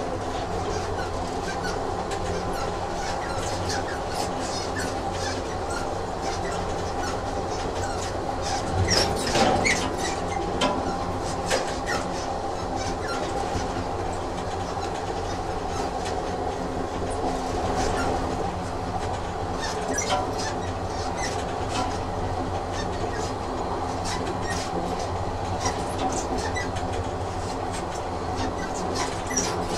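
Train sound effect: a train running on rails, a steady hum under irregular clicks of the wheels over the track, loudest about nine seconds in.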